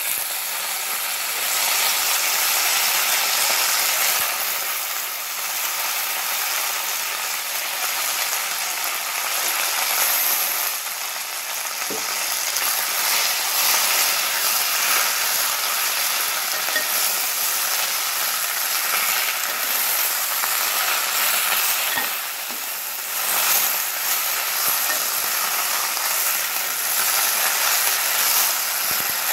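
Freshly washed fresh mint leaves sizzling in hot oil in a metal pan with fried spices, stirred with a spatula; a loud, steady frying hiss with crackle.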